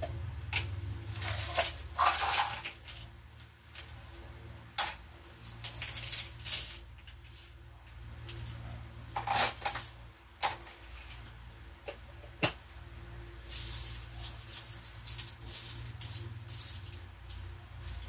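Loose coins clinking and rattling as they are handled and set down, in scattered bursts with single sharp clicks, over a low steady hum.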